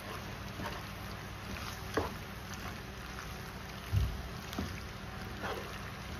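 Wooden spoon stirring and folding penne in a thick creamy sauce in a skillet: wet squelching and scraping, with a few knocks of the spoon on the pan, the heaviest about four seconds in, over a steady low rumble.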